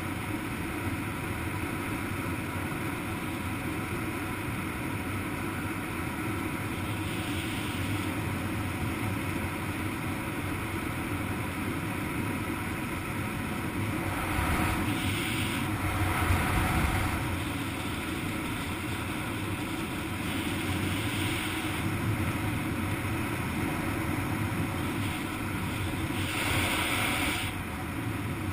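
Wind rushing over the camera's microphone while flying under an open parachute canopy: a steady rush that swells louder about halfway through and again near the end.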